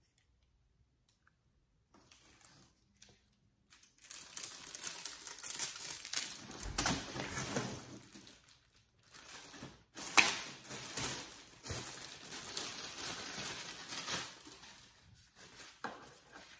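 Near silence for about four seconds, then a thin plastic bag crinkling and rustling as an accessory is unwrapped from it. There is a louder crackle about ten seconds in.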